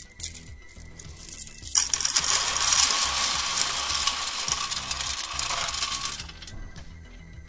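Coins clinking in a cupped hand, then poured into the tip of a motorcycle's Arrow muffler: a continuous metallic jingle that starts about two seconds in, lasts about four seconds and stops abruptly.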